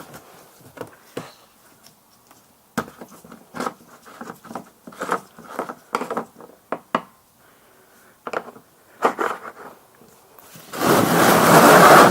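Irregular scrapes, clicks and knocks of things being handled and moved around the car, then a loud rough scraping noise lasting about a second near the end.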